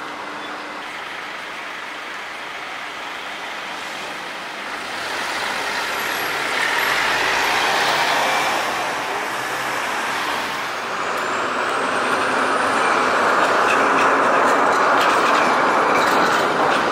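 Street traffic, with a box truck passing close about halfway through. Then a two-section articulated tram runs by on its rails near the end, louder, with light clatter from its wheels.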